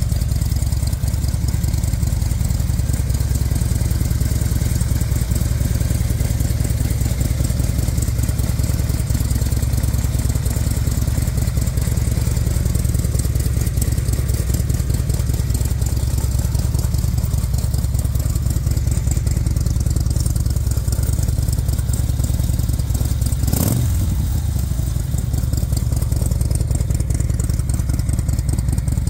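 Harley-Davidson Road King Screaming Eagle V-twin idling steadily through Tailgunner Gunship slip-on exhaust. One short knock comes late on.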